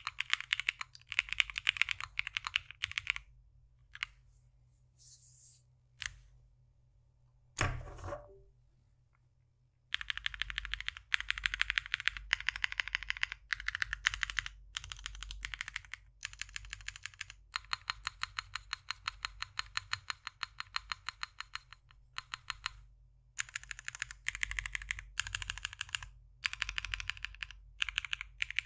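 Typing on a Ciel 60% custom mechanical keyboard: lubed JWK Prevail Epsilon switches with 57g springs, CRP keycaps, POM half plate and flex PCB with a tape mod, in a CNC aluminium Bakeneko case. Fast keystrokes come in bursts, broken by a pause of several seconds with a few single clicks and one louder thud about eight seconds in, then a long run of quick, even typing.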